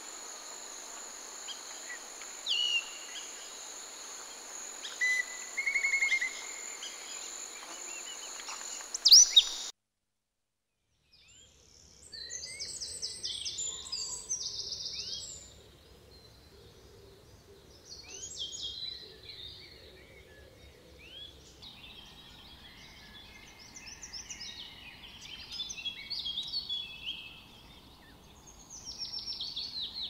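Wild birds calling over a steady high insect drone, with one loud call about nine seconds in. The sound then cuts to a second or so of silence, followed by many birds calling together in short bursts of rapid trilling notes.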